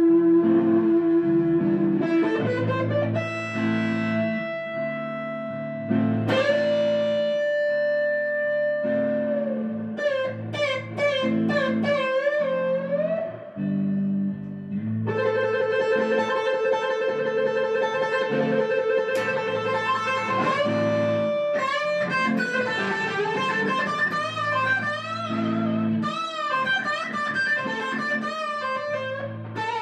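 Background music: a guitar plays a lead melody of long held notes that bend and waver, over a repeating bass line.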